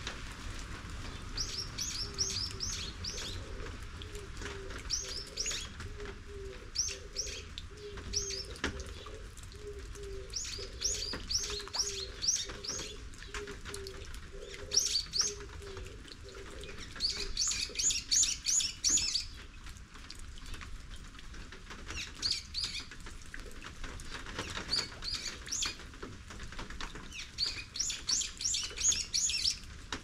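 Small songbirds calling in repeated bursts of quick high chirps every couple of seconds, over a steady hiss of rain. Through the first half a soft, low call repeats about twice a second.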